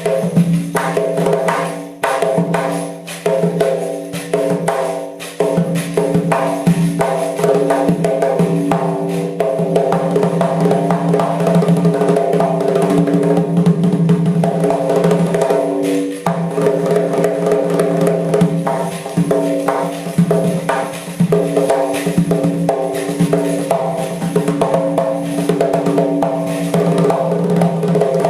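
Doira, the Uzbek frame drum with metal jingle rings, played in a fast, dense rhythm of strikes, over steady held tones.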